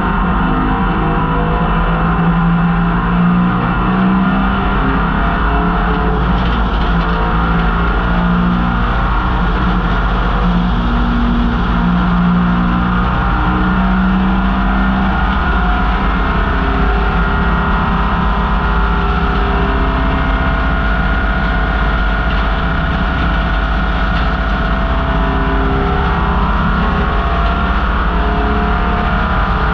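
1968 MGB GT's four-cylinder B-series engine run hard at racing speed, loud and continuous, its pitch rising and dropping every few seconds as the revs change through the gears.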